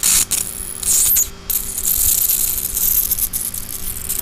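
Homemade plasma globe powered by a flyback transformer driver, hissing and buzzing with high-voltage discharge, with a steady hum underneath. The hiss cuts out briefly a few times in the first second and a half.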